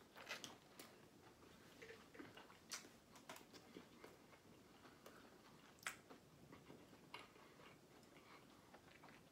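Faint chewing with scattered sharp mouth clicks, a person eating pizza, over near silence.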